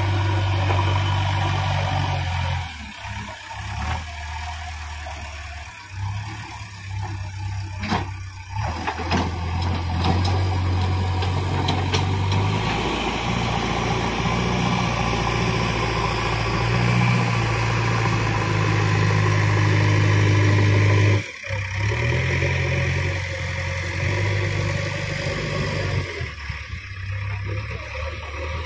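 JCB backhoe loader's diesel engine running as it digs, its pitch and loudness rising and falling with the work, with a brief break about three-quarters of the way through.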